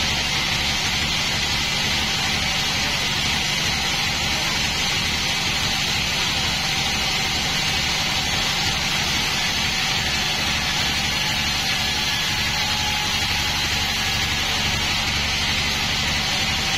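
Band sawmill running steadily with its blade cutting through a Bayur log: a continuous loud hiss over a low throbbing hum from the drive.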